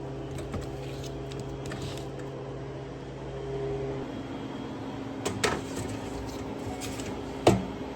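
Steady hum of a running appliance or motor, its tone shifting about halfway through, with a few sharp clicks and one louder knock near the end.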